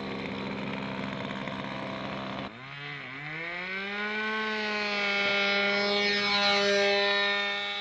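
OS .46 two-stroke glow engine on an RC model plane. It runs steadily, then about two and a half seconds in it opens up for the takeoff run: the pitch dips, rises and holds a steady high note. It grows louder as the plane passes close by and lifts off, then fades near the end.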